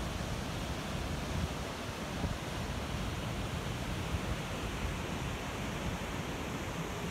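Steady rushing of ocean surf and wind, with wind buffeting the microphone in a low, uneven rumble.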